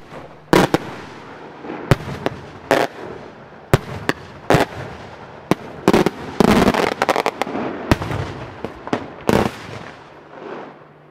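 Aerial firework shells bursting in the sky, a long irregular series of loud sharp bangs, most tightly packed about six to seven seconds in, with rumble and crackle between the reports.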